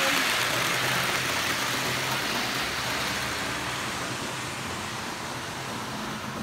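Model railway Piko Vectron electric locomotive and its mixed freight train running past: a steady hiss of wheels on the rails with a low motor hum, fading as the train draws away.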